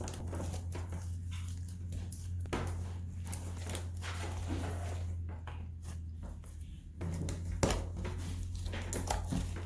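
Homemade slime being kneaded and stretched by hand, giving scattered soft clicks and squelches over a steady low hum.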